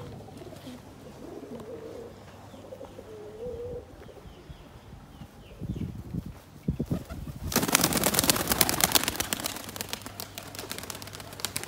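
Pigeons cooing faintly, then about seven and a half seconds in a loud, rapid flurry of wing beats and wing claps as pigeons take off, lasting a few seconds.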